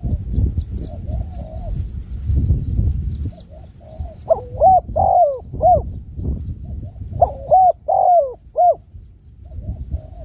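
Spotted dove cooing: two phrases of arched, hollow coo notes, about three seconds apart. A low rumbling noise underlies the first few seconds, with faint high chirps of smaller birds.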